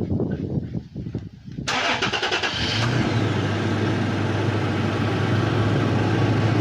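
Toyota Tacoma's engine starting about two seconds in, with a short spell of cranking noise, then settling into a steady idle.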